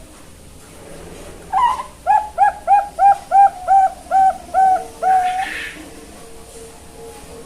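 Young zebra dove (perkutut) cooing: a rising opening note, then a quick run of about eight short, evenly spaced coos, ending on one longer held note.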